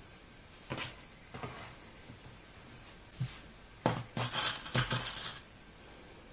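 Hands smoothing and pinning knit jersey fabric on a tabletop: a few short brushes and light taps, then a louder stretch of rough, crackly rustling about four seconds in that lasts a second and a half.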